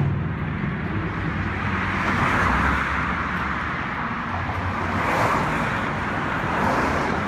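Road traffic passing close by: car tyre and engine noise in a steady stream, swelling as vehicles go by about two and a half, five and near seven seconds in.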